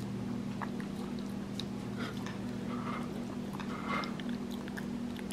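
Capuchin monkey licking and eating applesauce from a bowl: scattered small wet smacks and clicks, a few louder ones about two and four seconds in, over a steady low hum.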